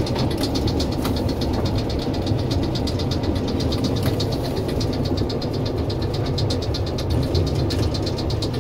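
Diesel engine of a FAUR L45H diesel-hydraulic locomotive running steadily, heard from inside the cab as it slowly pushes loaded coal wagons. The engine gives a low rumble with a fast, even clatter over it, and a couple of single knocks come about a second and four seconds in.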